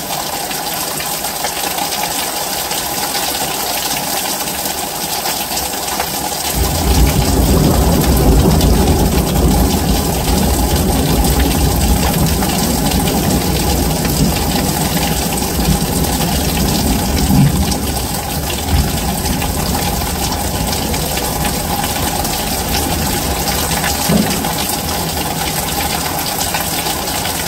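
Heavy rain falling steadily. About six seconds in, a low rumble rises under it and dies away over roughly ten seconds.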